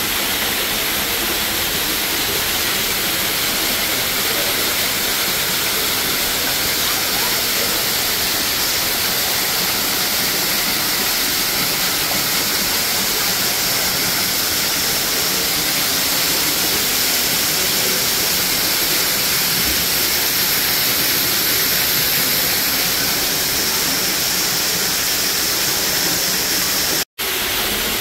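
Artificial waterfall: a curtain of water pouring off a rock overhang into a pool, a steady rushing splash. The sound drops out for an instant about a second before the end.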